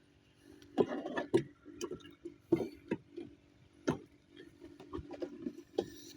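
Irregular clicks and knocks of hands handling fishing tackle while hooking live shrimp bait, the sharpest about a second in and twice more in the middle, over a steady low hum.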